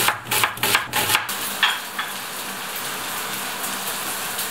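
A chef's knife chopping through an onion on a plastic cutting board in quick, even strokes, which stop a little over a second in. Then bulgogi beef and onion sizzle steadily in a frying pan, with a couple of light taps of the spatula.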